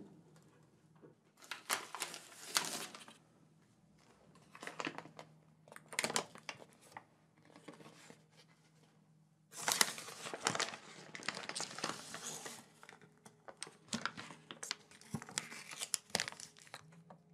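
A paper wrapper being handled and torn open, crinkling and tearing in several bursts. The longest run comes about two-thirds of the way through, over a faint steady low hum.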